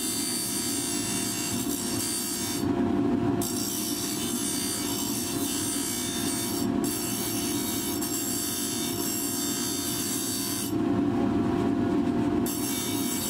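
Bench grinder running while a blade for a woodturning tool is held against its wheel: a steady high grinding hiss over the grinder motor's hum. The grinding stops briefly about three seconds in and again for nearly two seconds near the end, leaving the motor running alone.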